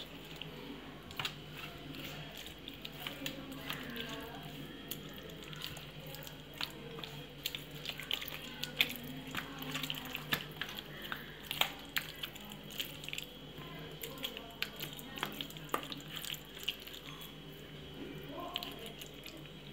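Hands squishing a thick yogurt-and-spice marinade into raw chicken pieces in a steel plate: irregular wet squelches and sharp little clicks of fingers and meat against the metal, busiest in the middle, over a steady low hum.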